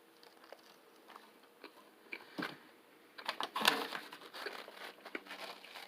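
Close-up biting and chewing into a chicken sandwich, with a cluster of crisp crunching noises about three seconds in and lighter smacking and crinkling around it.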